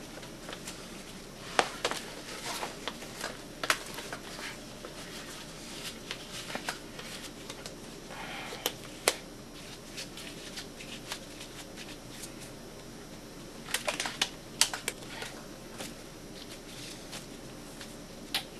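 Irregular sharp clicks and taps with brief light rustling: small objects being handled and moved about while a pair of gloves is got out. The clicks come singly at first and bunch together about fourteen seconds in.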